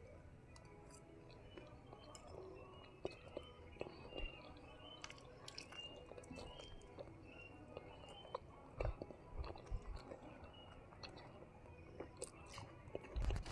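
A person quietly chewing a mouthful of beef fried rice, with scattered small clicks and taps.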